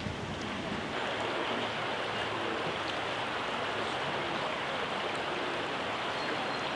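Shallow river water rushing steadily over low weir steps. The sound swells slightly about a second in and then holds even.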